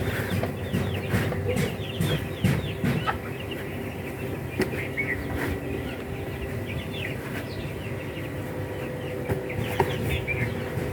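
Chickens calling: many short, high, falling chirps in quick succession, over a steady low hum.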